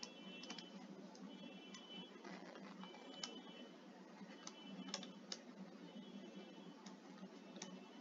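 Faint taps and clicks of a stylus writing on a tablet screen, with a few sharper clicks scattered through and short high whines coming and going about once a second.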